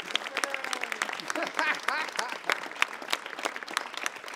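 Audience applauding after a song, many separate hand claps, with a few voices calling out in the middle.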